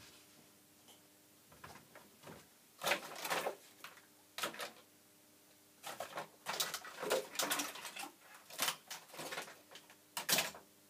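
Rummaging through tools and parts in search of a chip pin-aligning tool: irregular clattering and rustling in bursts, busiest in the second half, over a faint steady hum.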